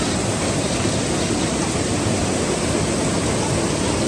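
Steady rush of flowing water from a stream.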